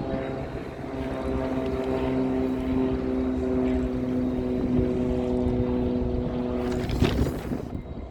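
Diesel locomotive engine running with a steady droning hum, its pitch holding level with no rise or fall. The hum fades out about seven seconds in, with a short knock.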